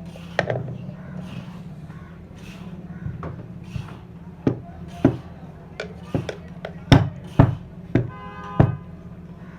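About a dozen light, irregular metal knocks and taps as a ceiling fan's bearing ring is set into the fan body, over a steady low hum.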